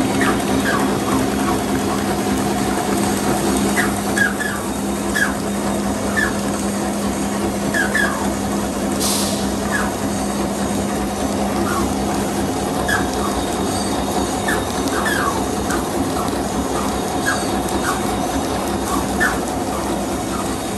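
JS 166 straw bending machine running at production speed: a steady mechanical hum with frequent short, high squeaks at irregular intervals, and a brief hiss about nine seconds in.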